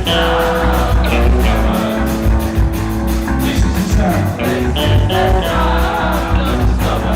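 Punk rock band playing live and loud: electric guitar, bass and drums with a steady beat, and singing.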